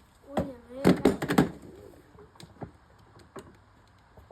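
A short squeak, then a quick cluster of sharp knocks and clatter, with a few fainter ticks after: hard plastic parts of a Power Wheels ride-on toy Jeep being handled and knocked about during disassembly.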